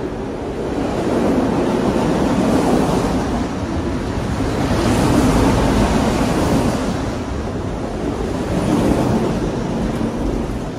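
Autorack cars of a freight train rolling past close by: a continuous noise of wheels on rail and rattling car bodies, growing louder about a second in and swelling again around the middle and near the end.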